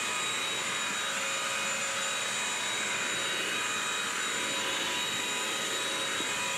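BISSELL Crosswave multi-surface wet/dry vacuum running steadily: an even rush of air with a steady high motor whine.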